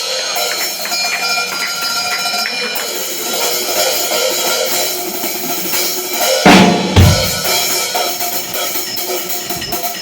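Drum kit played live in a solo: cymbals ringing continuously under snare and drum hits, with a heavy bass drum and crash hit about six and a half seconds in.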